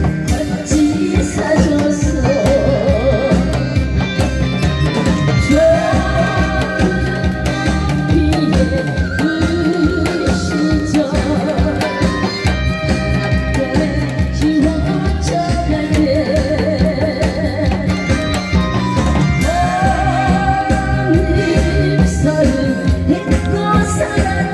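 A woman singing a slow Korean song with a wavering vibrato, over an amplified backing track with a steady drum beat.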